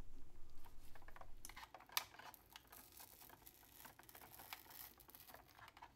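Faint scattered clicks and light taps of a small screwdriver and gloved hands on the plastic shell of a trackball, with one sharper click about two seconds in.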